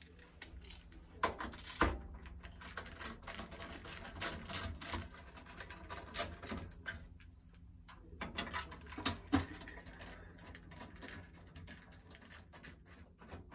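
Irregular light clicks, taps and small rattles of hands handling a steel PC case and its top mounting bracket, with a few sharper knocks about 2 s and 9 s in.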